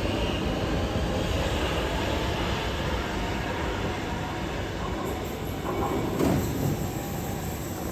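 Siemens MX3000 metro train pulling out of an underground station and running away into the tunnel, a steady rumble of wheels and motors that slowly fades, with a faint high wheel whine early on.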